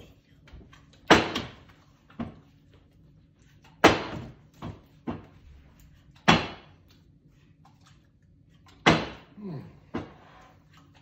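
A partly filled plastic water bottle flipped and landing on a tabletop four times, each landing a sharp thud followed by a lighter knock or two as it bounces or topples.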